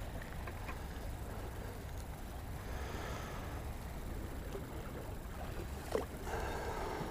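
Steady wind rumble on the microphone, with a brief sharp sound about six seconds in.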